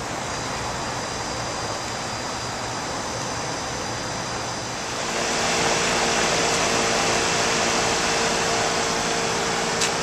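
Steady rush of rooftop air-conditioning noise. About halfway through it grows louder, with a steady hum added, as the Rheem 5-ton packaged unit runs with its newly replaced 1/3 hp condenser fan motor turning the blade.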